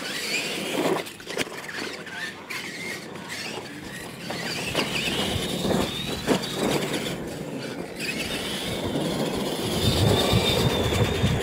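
Electric RC monster trucks of the Tamiya Clod Buster type racing on dirt: a high motor and gear whine that rises and falls as they accelerate, with a few knocks from the trucks hitting ramps. It is loudest, with more rumble, near the end as one truck runs close by.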